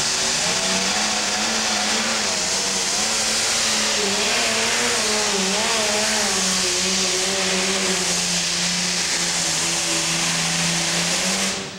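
Modified pulling tractor's engine running at full throttle while it pulls a weight-transfer sled down the track. It is a loud, continuous roar whose pitch wavers and sags slightly under the load, and it cuts off suddenly near the end.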